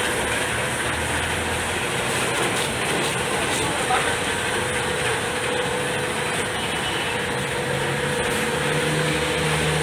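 Areca nut peeling machine running, its electric motor driving the peeling rollers, a steady mechanical noise with a constant hum as the husks of young nuts are stripped off.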